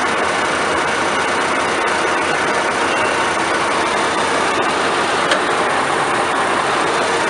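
New Holland CR combine's engine running steadily, a constant even drone. A single sharp click comes a little over five seconds in.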